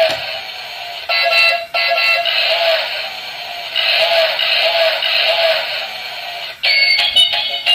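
A battery-powered bump-and-go toy car's built-in sound chip playing a thin, tinny electronic tune with no bass. About seven seconds in it switches to a pattern of rising and falling tones.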